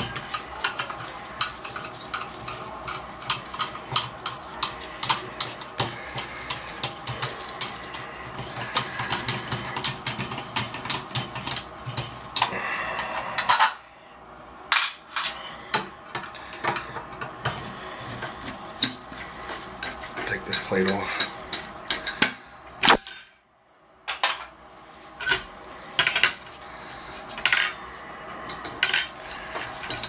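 Screwdriver blade scraping and clicking against the metal stem and body of a Moen Posi-Temp shower valve, a busy run of sharp metallic clicks and scrapes that stops briefly twice, about halfway and again past two-thirds through.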